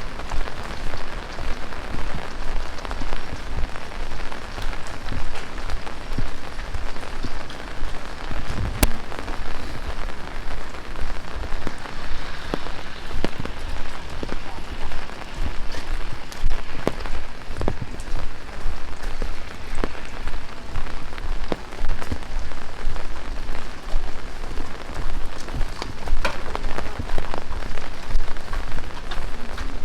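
Heavy rain falling steadily and splashing on surfaces, with scattered sharp drip and drop impacts close by, one stronger knock about nine seconds in.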